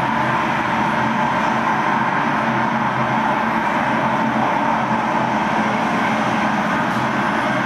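Steady urban background noise: a constant, unchanging din like distant traffic, with a faint low hum underneath.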